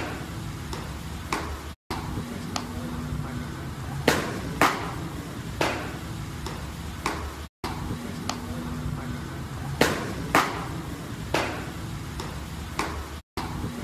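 Baseballs popping into catchers' leather mitts in a bullpen: sharp, loud cracks, often two about half a second apart, every few seconds, with fainter ticks between. The sound cuts out briefly three times.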